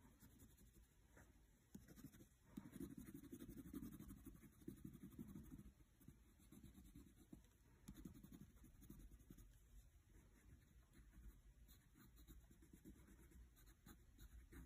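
Wax crayon scribbling on sketchbook paper in quick back-and-forth strokes, faint, loudest from about two and a half to six seconds in.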